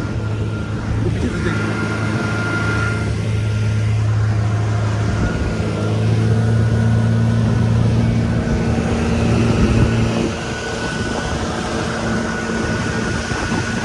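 Speedboat engine running steadily under way, with a rush of wind and water. The engine note changes a little past eight seconds in.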